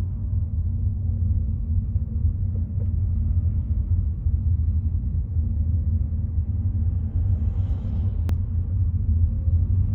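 Steady low rumble of a car travelling along a road, engine and tyre noise, with one sharp click about eight seconds in.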